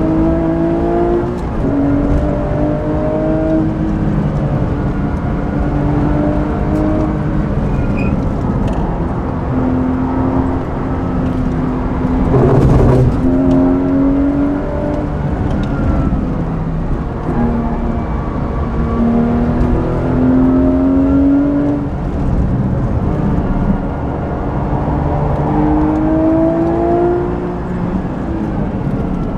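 Porsche 997.2 GT3 RS flat-six with a Manthey racing exhaust, heard from inside the cabin at speed. It repeatedly revs up in rising pitch and drops back at manual gear changes, over steady road noise. There is a brief loud rush of noise about halfway through.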